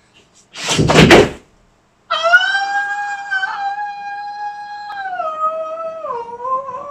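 A loud crash of noise about a second in, then a man's long, high-pitched howling cry. The cry is held for about six seconds and drops in pitch twice in its second half.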